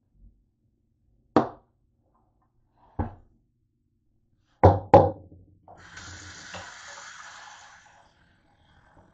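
Four hard knocks as a bowl is handled and set down in a stainless steel sink, the last two close together and loudest. The tap then runs into the bowl for about two seconds.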